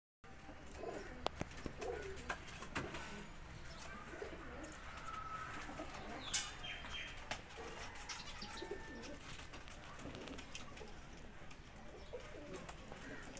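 Domestic pigeons cooing softly in a loft, with one sharp click about halfway through.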